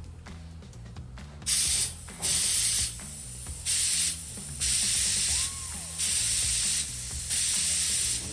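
Six short bursts of spray hissing in a row, each about half a second to a second long, starting about a second and a half in. Quieter background music plays underneath.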